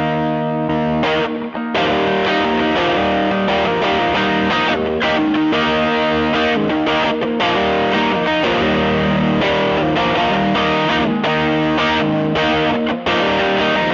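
Electric guitar (Fender '52 Telecaster) played through a Tube Screamer overdrive pedal into a 1966 Fender Vibrolux Reverb combo pushed into breakup, with overdriven chords ringing out. The playing breaks off briefly about a second and a half in and again near the end.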